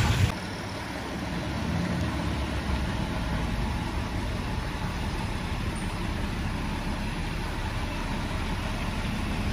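Truck engines idling in a stalled traffic queue, a steady low engine sound with no changes in pace.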